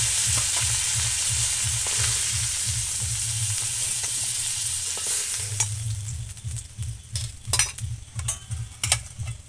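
Cauliflower florets sizzling in hot mustard oil in an iron karai as they are lifted out with a metal spatula. The sizzle fades about halfway through as the last pieces come out, and a string of sharp clicks and scrapes of the spatula against the pan follows.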